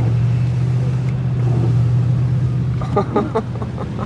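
Pickup truck engine running at a steady low drone, heard from inside the cab.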